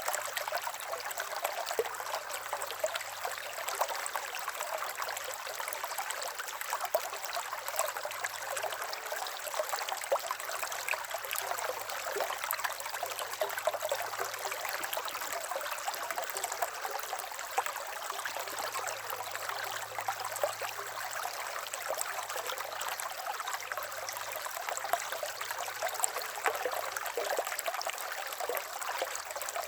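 River water flowing steadily over stones, a continuous babbling rush with small splashes and trickles throughout.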